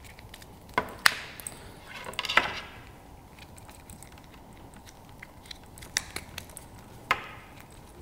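Handling noise of a rubber strap and boot being worked onto a Suunto Vyper dive computer's plastic case: sharp clicks about a second in, a rubbing scrape around two and a half seconds in, then light ticks and another click near the end.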